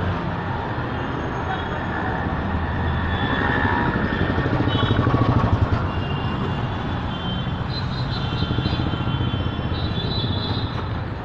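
Street traffic noise: a steady mix of vehicle engines and road noise, swelling a little around the middle, with short high tones scattered through it.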